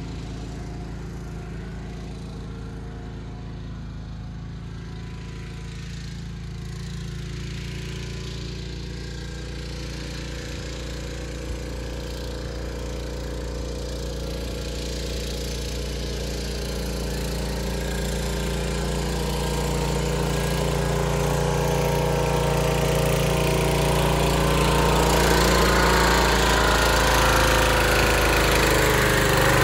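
Recently rebuilt engine of a 1978 John Deere 316 garden tractor running steadily as the tractor is driven in, growing louder over the second half as it approaches.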